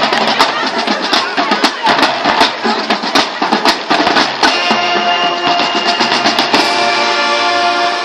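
High school marching band playing. The drumline beats out a fast cadence, and about halfway through the horns come in with held chords over the drums.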